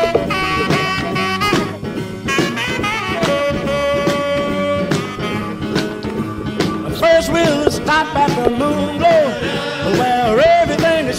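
Background swing-jazz music led by horns, playing steadily.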